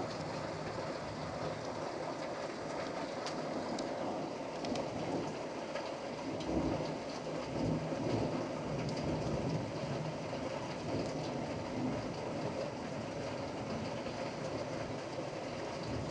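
Steady rain during a thunderstorm, with a low rumble of thunder that swells about six seconds in and dies away a few seconds later.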